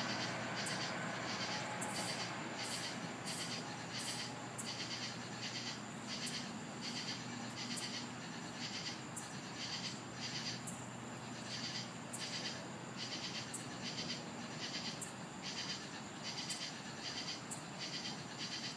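Crickets chirping at night, a rhythmic pulsing chorus repeating about twice a second, over a faint steady low hum.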